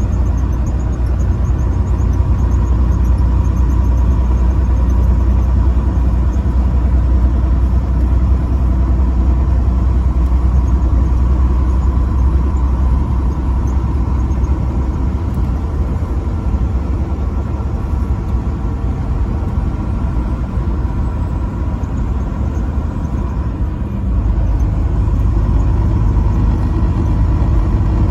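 Motor vehicle driving on a highway: a steady low engine and road rumble that drops off about halfway through and picks up again shortly before the end.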